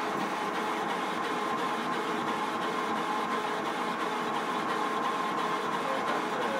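Epilogue laser cutter running through an engraving job: a steady machine hum and hiss with a faint constant tone, no breaks or changes.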